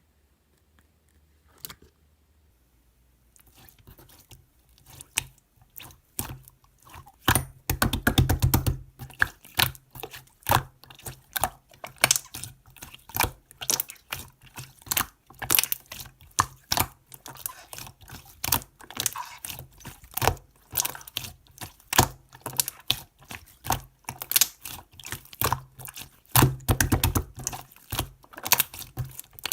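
Keys of a computer keyboard being typed on, irregular clicking that starts about three seconds in, with fast flurries of keystrokes twice.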